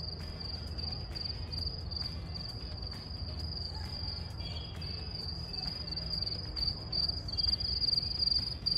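Crickets chirping in a continuous, rapidly pulsing high trill, over a low steady rumble.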